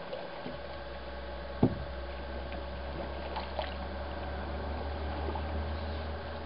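A cedar strip canoe being paddled, with faint paddle splashes and water sounds over a steady low hum. One sharp knock sounds about a second and a half in, with a few lighter clicks after it.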